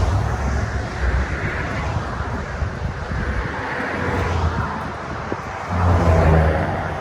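Motorcycle riding with heavy wind noise on the microphone, the low rumble of a Harley-Davidson Low Rider S V-twin underneath, swelling louder about six seconds in.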